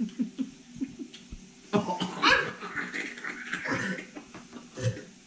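People laughing, mostly a burst of laughter starting a little under two seconds in and lasting about two seconds, with softer laughs before and after.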